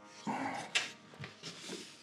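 Quick-release bar clamps and a wooden workpiece being handled on a workbench: a short scraping sound, a sharp click near the middle, then a few lighter knocks.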